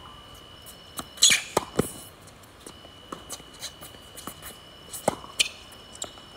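Tennis ball being hit with rackets and bouncing on a hard court: sharp separate knocks, loudest in a quick cluster a little after a second in and again around five seconds. A faint steady high whine runs behind them in places.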